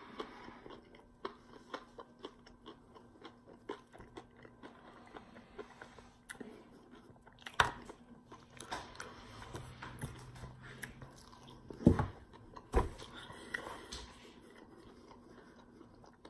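Close-up chewing of a spicy fried chicken leg: wet chewing with small crackles from the crisp breading, and a few sharper, louder crunches around the middle.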